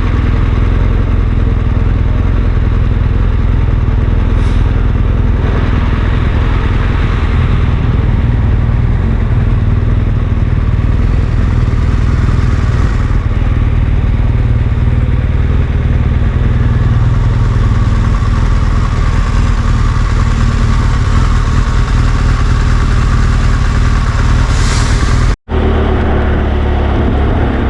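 Steady noise of a vehicle driving along a highway: loud, even road and wind rumble, with a momentary dropout near the end.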